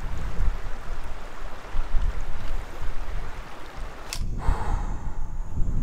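Shallow river water running past, with gusty wind buffeting the microphone in uneven low rumbles. A single brief sharp click comes about four seconds in.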